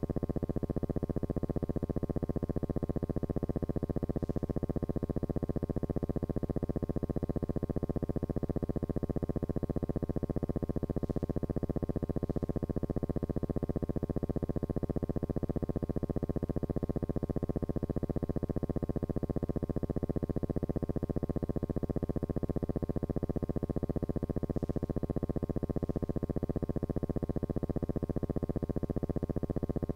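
Steady buzzing drone with a fast, even pulse, unchanged throughout.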